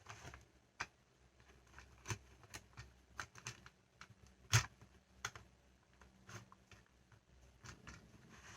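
Small plastic toys being handled: irregular light clicks and taps, with one sharper knock about halfway through.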